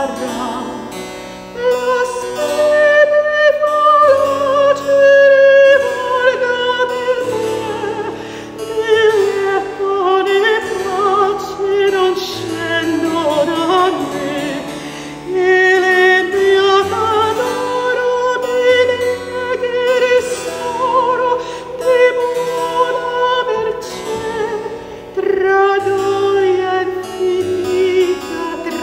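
A woman's voice singing an early-Baroque Italian song with harpsichord accompaniment: a flowing sung melody over plucked harpsichord chords.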